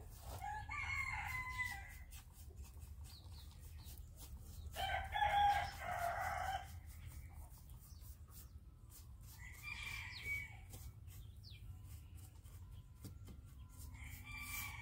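Rooster crowing four times, a few seconds apart, the second crow the longest and loudest.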